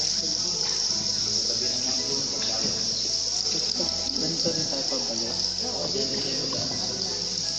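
A steady, high-pitched insect chorus like crickets trilling, with faint murmuring voices and a low hum underneath.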